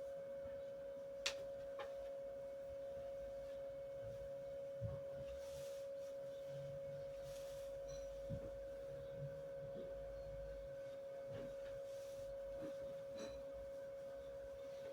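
A steady, unchanging single-pitched hum, with a few faint knocks or taps scattered through it.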